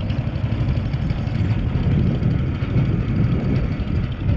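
Small wooden boat's engine running steadily at low speed, a dense rapid pulsing with most of its sound low down.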